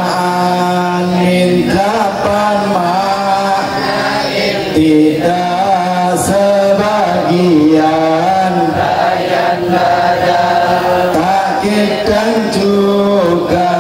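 Voices chanting an Arabic nazham verse together to a slow melody with long held notes: the rhymed rule that lists the meanings of the particle min.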